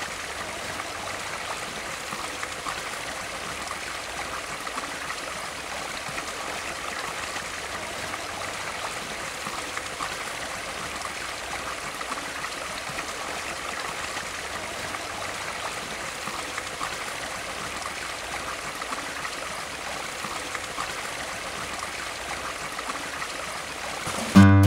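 Shallow creek flowing, a steady trickling rush of water.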